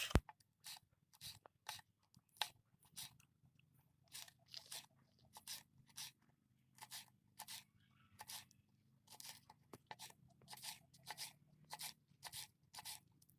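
Knife cutting chillies on a cutting board: a long run of faint, short, crisp cuts, about two a second, with brief uneven pauses.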